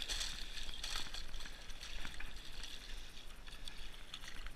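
A small hooked pike thrashing and splashing at the water's surface. The biggest splashes come right at the start and about a second in, with smaller splashing after.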